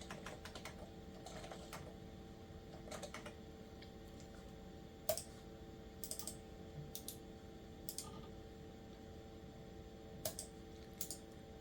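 Scattered, irregular clicks of a computer keyboard and mouse in use, a dozen or so, faint, over the steady hum of a running 1997 Packard Bell desktop PC.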